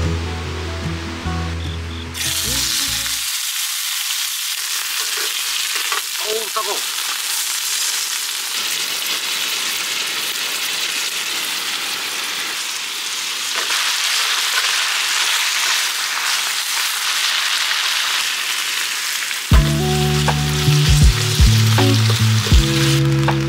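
Food sizzling as it is stir-fried in a skillet over a mini wood-burning stove, with a spatula scraping and tossing it. Music plays over the first few seconds and comes back near the end.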